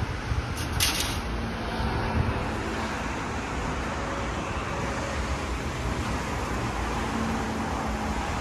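Steady city traffic and station background hum, with two short sharp clicks about a second in.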